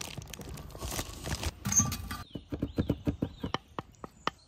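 Foil and raw bacon rustling and crinkling as bacon strips are laid over a minced-pork roll. About two seconds in, this changes to a wooden spatula stirring and pressing a thick cheese-and-dill filling in a clay bowl, with quick sticky clicks about five a second.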